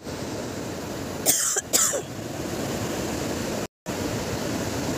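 Sea surf washing onto a sandy beach and rocks, a steady rushing, with two short loud bursts about a second and a half in. The sound cuts out for a moment nearly four seconds in.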